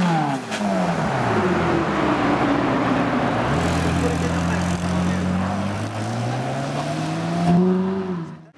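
Ferrari 458 Italia's naturally aspirated V8 through its triple centre exhaust. A sharp rev falls back over the first second or so. The engine then holds a steady note and climbs in pitch again as the car pulls away, before the sound cuts off suddenly near the end.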